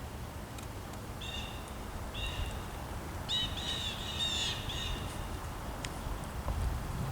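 A bird calling: two separate calls, then a quick run of four or five calls about three seconds in, over a low rumble.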